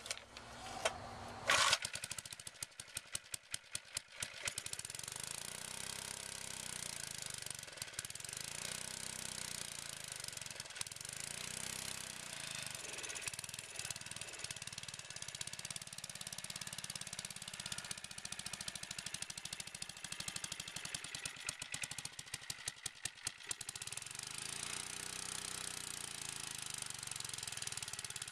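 1951 David Bradley walk-behind tractor's single-cylinder engine, pull-started cold without choke on low throttle after years of sitting, catches about two seconds in. It then keeps running steadily on its freshly rebuilt carburetor.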